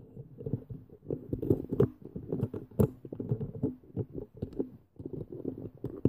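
Close-up handling noise from fingers working small plastic Minecraft toy figures right by the microphone: a run of irregular soft knocks and rubbing, with a few sharper plastic clicks.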